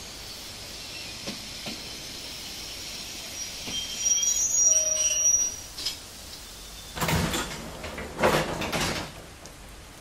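Train sound effects: a faint steady hiss, then a high squeal about four seconds in lasting over a second, followed by two loud hissing bursts near the end.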